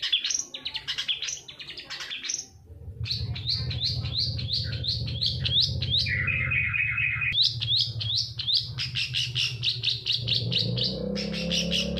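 Long-tailed shrike singing rapid runs of short, sharp, downward-sweeping notes, with a harsher buzzy stretch about six seconds in. A steady low hum runs underneath from about three seconds in.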